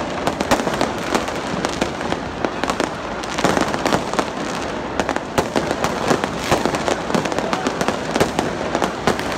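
Fireworks going off overhead in many rapid, irregular bangs and crackles, over the steady noise of a large crowd.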